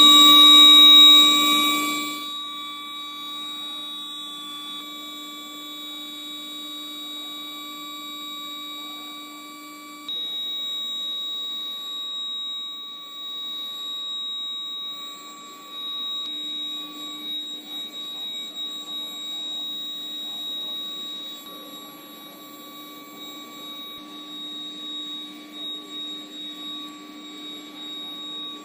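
Steel bar induction heating furnace giving off a steady buzzing whine made of several fixed tones. It is loudest for the first two seconds, drops, then steps up again about ten seconds in.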